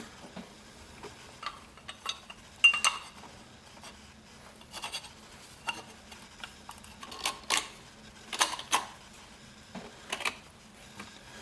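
Metal parts of an automatic drive-belt tensioner, its arm and coil spring, clicking and clinking against each other as it is put back together by hand. The knocks are irregular, a few with a short ring, and come thickest in the second half.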